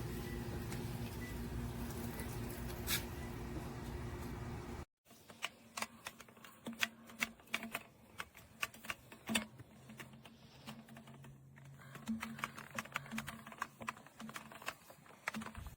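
A steady background hum for about five seconds, then, after a sudden cut, a quiet run of irregular light clicks and taps.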